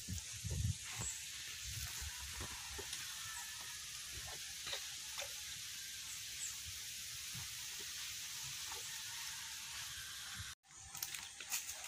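Steady outdoor background hiss with a low rumble and a few faint scattered taps; the sound drops out for a moment near the end.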